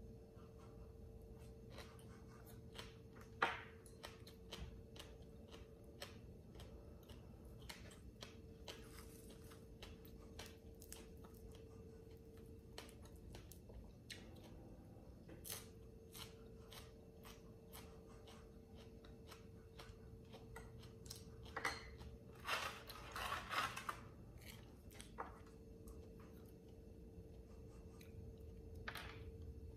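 Close-up eating sounds: soft chewing and small mouth clicks from someone eating lotus-stem salad, with a short run of crunching from a toasted sesame rice cracker about three-quarters of the way through. A faint steady hum lies underneath.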